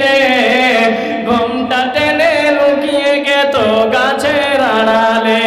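A man singing a Bengali gojol (Islamic devotional song) through a microphone, with no instruments: long drawn-out notes that slide down and back up in pitch.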